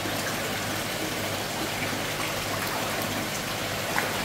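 Steady rush and splash of water running in koi holding tanks.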